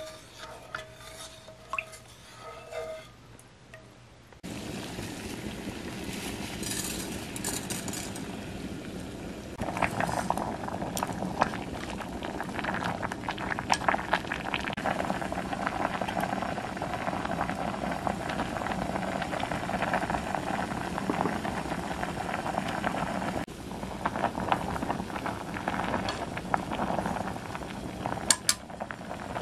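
A wooden spoon stirring salt into a stainless steel pot of water, with light clinks against the pot. About four seconds in, water at a rolling boil starts bubbling steadily, with wooden chopsticks tapping and scraping the pot as spaghetti is stirred in.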